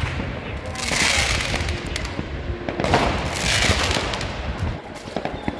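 Fireworks being launched: a hissing rush of sparks about a second in and another about three seconds in, each lasting about a second, with scattered cracks and pops between them.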